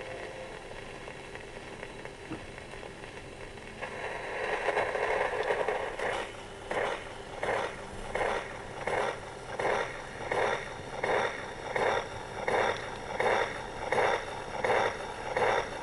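Gramophone needle riding in the run-out groove of a played-out 78 rpm record. First comes surface hiss, then, from about six seconds in, a scratchy pulse that repeats about every three-quarters of a second, once per turn of the disc.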